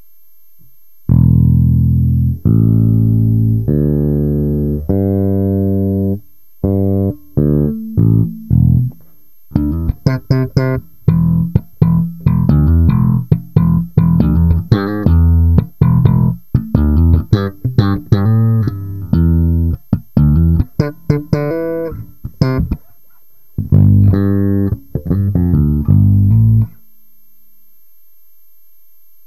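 Warwick Rockbass Streamer electric bass plucked with the fingers, its strings freshly boiled clean, which the owner says makes them sound like new. Four long ringing notes open, then a quicker run of notes, a brief break, and a last short phrase that stops a few seconds before the end.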